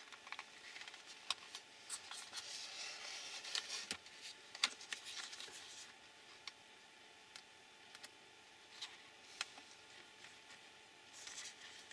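A plastic RC car chassis being handled on a desk: rustling and scattered clicks and knocks for the first few seconds, then a hand screwdriver turning a screw into the chassis with sparse light ticks.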